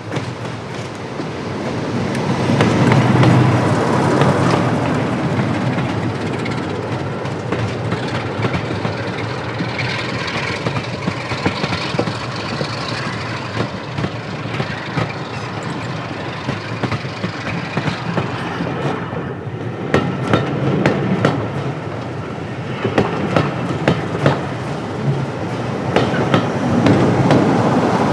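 Diesel-hauled passenger train passing close by: the Sulzer diesel engines of British Rail Class 47 and Class 26 locomotives build to their loudest a few seconds in, followed by the coaches rolling past with rapid wheel clicks over the rail joints, which grow dense in the second half.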